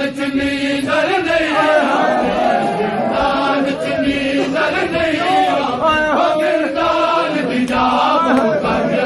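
A group of men chanting a noha in chorus, their voices sliding up and down in long held lines, with hands slapping on bare chests in matam beneath the chant.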